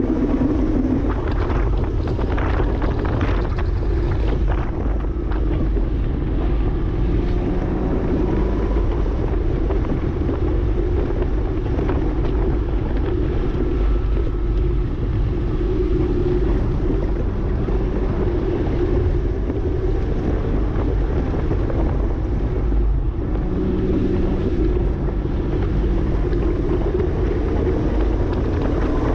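2009 Porsche Cayman S's 3.4-litre flat-six running steadily under way, its note drifting up and down a little and rising near the end, over a heavy low rumble of road and wind noise.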